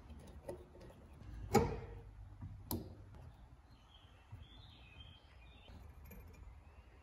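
Slip-joint pliers working a rusty fastener out of an iron strap on old wood: a sharp metallic click with a brief ring about a second and a half in, a second click a little over a second later, then a few faint high chirps.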